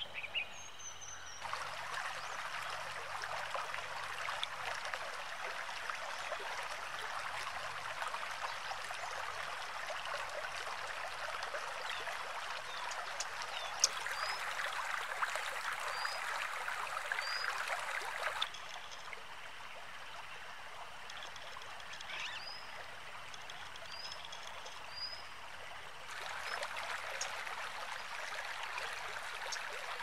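Shallow stream running over stones, a steady rushing splash, with short high bird chirps now and then. The water is loud for most of the first half, drops to a softer trickle for a stretch past the middle, then swells again near the end.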